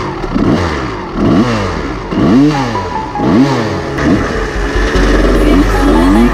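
Kawasaki KX250 dirt bike engine revving, its pitch rising and falling about once a second. From about five seconds in it runs higher and steadier, the pitch wavering quickly.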